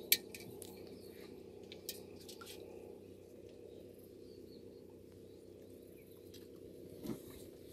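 A fish-hook chain line being hand-drawn out of the water beside an aluminium pot: scattered small clicks and taps, with a sharp one at the very start, over a steady low hum.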